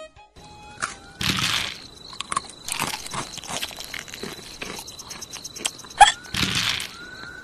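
Cartoon characters biting and chewing something crisp: loud crunches about a second in, near three seconds and about six seconds in, with smaller crunching and chewing between. A few short rising squeaks come with the bites.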